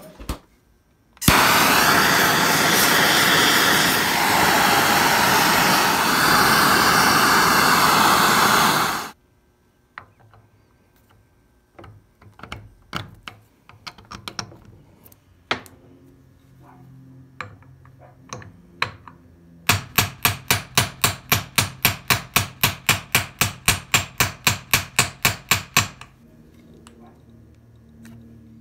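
Workshop tool noise on an ATV steering knuckle and ball joint. A loud steady rushing noise lasts about eight seconds and stops abruptly. Scattered light metal clinks and knocks follow, then a fast even run of sharp strikes, about four a second, for about six seconds.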